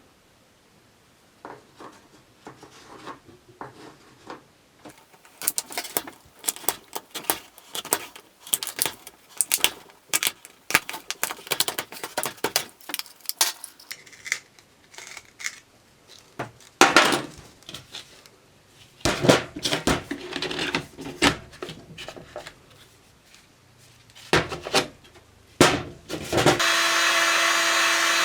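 Irregular clicks, knocks and rattles of parts being handled and fitted, then near the end a small electric motor starts and runs at steady speed with an even whine.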